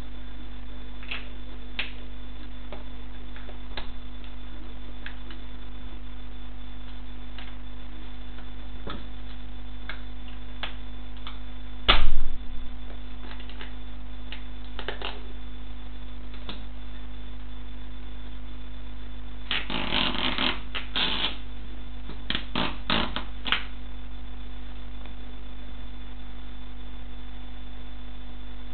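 Platform boot stomping on a small toy car: one loud thud a little before halfway, then two runs of crunching and scraping as the car is crushed under the sole. A steady electrical hum runs underneath, with a few light clicks.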